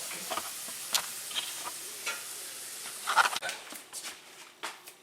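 Potato wedges sizzling in a skillet, with scattered clicks and scrapes of a utensil. About three and a half seconds in the sizzle stops, and a few separate clicks and knocks follow.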